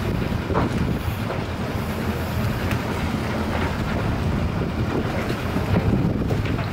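Wind buffeting the microphone in a steady low rumble, with a few faint knocks.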